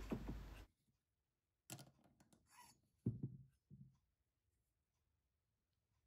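Mostly near silence, broken by a few faint knocks and clicks, the loudest about three seconds in: a small metal carburetor throttle slide being handled.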